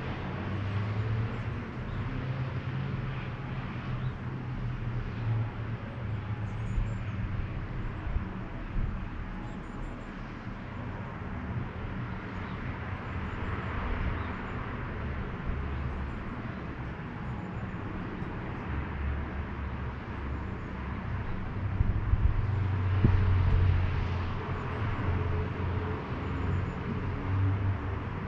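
Outdoor town ambience: a steady low rumble of distant road traffic, swelling as vehicles pass about halfway through and again near the end.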